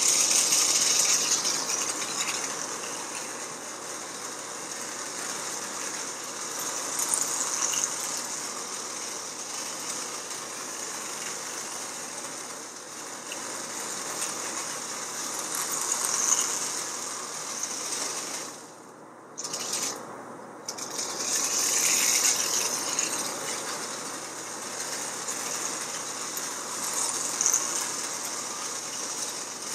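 Vintage Marx tinplate toy train locomotive running around the track, its small electric motor and gears whirring with wheels clattering on the rails, getting louder and softer every few seconds as it circles. It cuts out for about two seconds about two-thirds through, then runs again.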